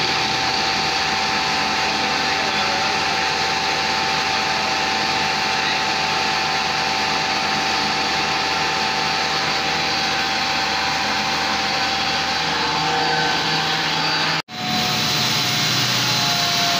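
Electric motor running steadily on a solar inverter drive: a constant mechanical hum with a steady high whine over it. The sound drops out for an instant near the end and carries straight on.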